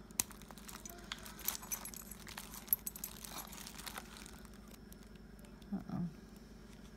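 Light metallic clicks and clinks as a key ring and keys are worked around a padlock in the hands, with faint crinkling of bubble wrap.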